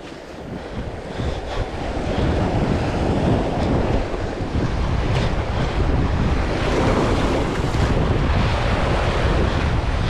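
Sea surf surging and breaking against shoreline rocks, with heavy wind buffeting the microphone. The noise builds over the first couple of seconds, then holds steady.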